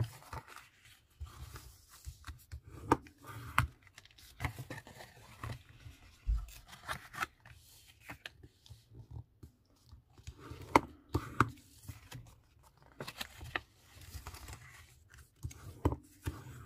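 Card stock being handled and folded, with a bone folder scraping along the creases and tapping on the cutting mat: irregular rustles, scrapes and sharp ticks, the loudest about eleven seconds in.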